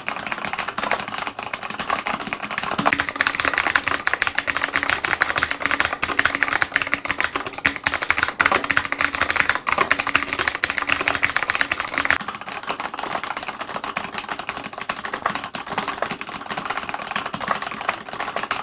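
Rapid typing on a Cherry MX mechanical keyboard with clicky blue switches, the noisiest switch type, each keystroke a sharp click. The typing turns softer about twelve seconds in.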